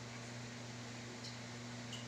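Quiet room tone: a steady low hum and even hiss, with a couple of faint ticks in the second half.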